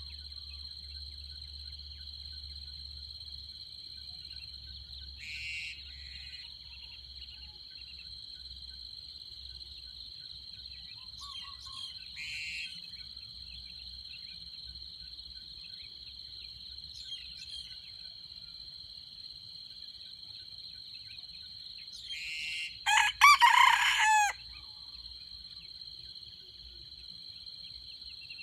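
A red junglefowl rooster crows once, loud and short, late on, over a steady high drone of insects. A few fainter short bird calls come earlier.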